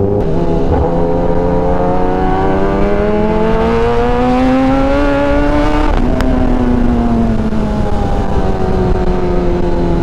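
Kawasaki ZX-10R inline-four engine pulling hard, its pitch climbing steadily for about six seconds. A click and a sudden drop in revs follow, after which the pitch sinks slowly.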